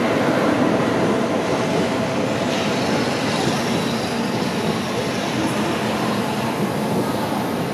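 Tokaido Shinkansen train running past on the track beside the platform: a steady noise of wheels and running gear on the rails, fading slightly over the seconds.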